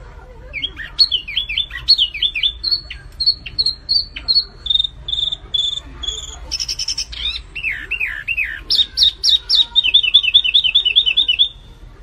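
Small songbird, a look-alike of the flamboyan, singing a lively, varied song of short whistled notes and falling sweeps, with a brief buzzy burst midway and a fast run of repeated notes near the end.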